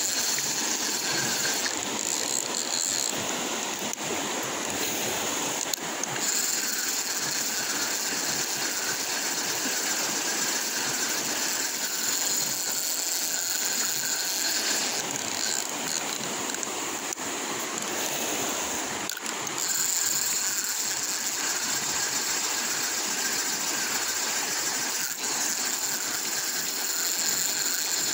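Shallow rocky river flowing over stones in a steady rush, with a high even hiss on top that drops away twice.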